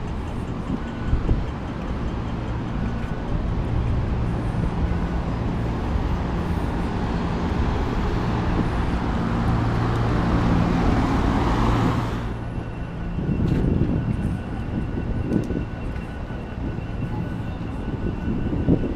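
Street traffic at a city crossing: engines run and vehicles pass, with a steady low engine hum under a swelling rush of traffic noise that stops abruptly about twelve seconds in. After that the street is quieter, with a faint steady high tone.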